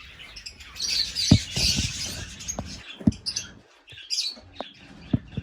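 Wooden nest box being handled and opened, giving several sharp knocks and clicks, with a spell of high scratchy rustling about a second in.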